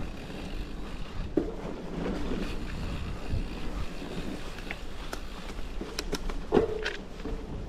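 Wind noise on the camera microphone over a mountain bike's tyres rolling on a dry dirt trail, with sharp knocks as the bike hits bumps about a second and a half in and again near the end, and a few light clicks and rattles between them.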